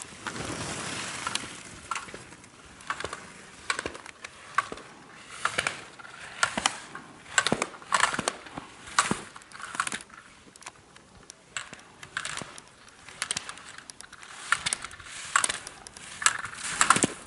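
Slalom skis carving quick turns on hard-packed snow, with the edges scraping in short repeated bursts and the gate poles clacking as the skier knocks them aside.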